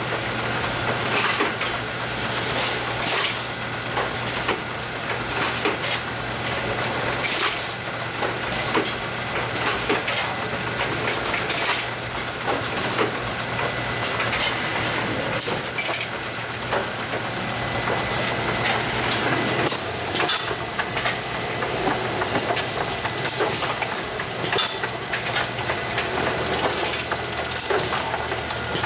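A tray former/loader packaging machine running. There is a steady machine hum and frequent irregular clicks and clatters as the jars knock together on the conveyor and are pushed onto the tray, with occasional short hisses.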